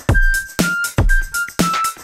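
Background electronic music with a steady drum-machine beat and short synth notes.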